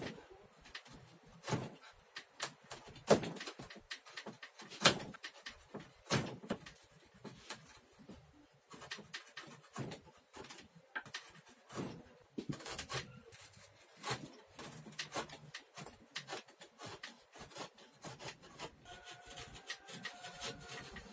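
Wood chisel paring a hardwood saw-handle blank by hand: irregular short cuts and scrapes of steel on wood, a few much sharper than the rest.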